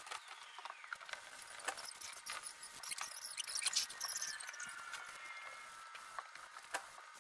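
Wet sanding by hand: an 800-grit sanding block rubbing over soapy, wet clear coat on a truck roof, giving scratchy strokes with small clicks and faint squeaks, busiest about three to four seconds in.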